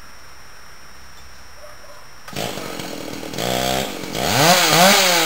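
A chainsaw engine starts up about two seconds in, then is revved up and down over and over.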